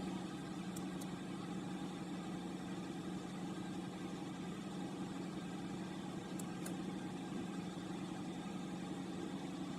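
Steady low mechanical hum, like a motor running, with two pairs of faint high ticks, about a second in and again just past six seconds.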